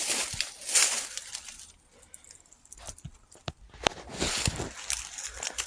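Footsteps crunching through dry leaves and storm-downed brush in uneven bursts, with a few sharp twig snaps a little past the middle.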